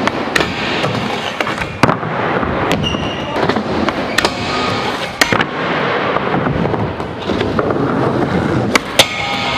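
Skateboard sliding along a long metal flat bar with a continuous gritty scrape, broken by a few sharp clacks of the board hitting the bar and the floor. Near the end the wheels roll on plywood.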